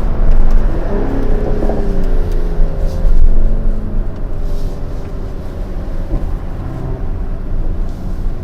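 Mercedes-AMG GLE 53's turbocharged straight-six engine and exhaust under way on the road, its pitch rising and falling in the first couple of seconds, then running more steadily.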